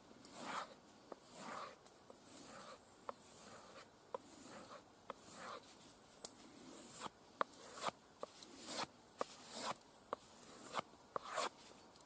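Cold Steel SRK blade being stropped on a leather strop loaded with polishing compound: repeated soft swishing strokes, a little more than one a second, with sharp clicks in between as the blade is turned.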